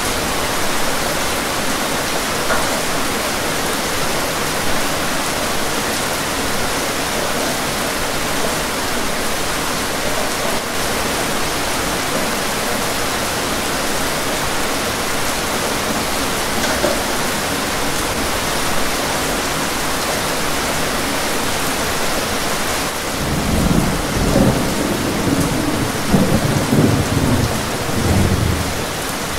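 Steady rain falling on a window pane, with a low roll of thunder rumbling for about five seconds near the end.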